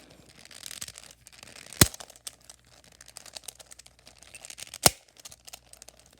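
Plastic 3x3 Rubik's Cube being handled and twisted, with many small clicks and rattles, and two sharp loud snaps about three seconds apart as the cube is pried apart.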